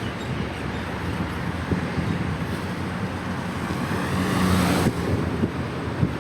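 Wind buffeting the microphone of a moving bicycle, with road traffic running underneath. A louder hiss swells from about three and a half seconds in and cuts off suddenly near five seconds.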